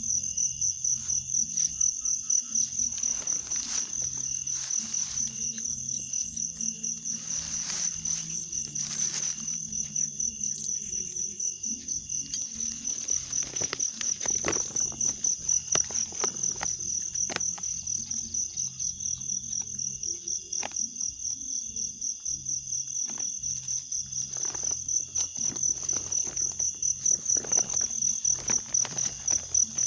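Insects chirring in a fast, steady pulsing trill, with scattered faint clicks.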